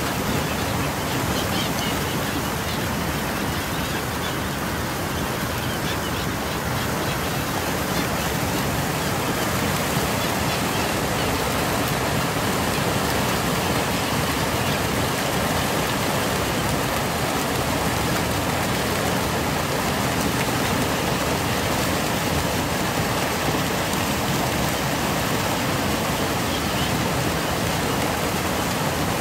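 Steady rushing of churning, foaming seawater splashing against shoreline rocks.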